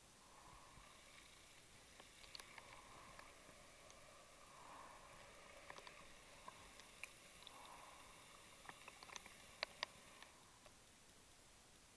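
Faint, muffled underwater noise picked up by a diver's housed camera: soft swells of hiss every couple of seconds and scattered sharp clicks, two louder ones close together near the end.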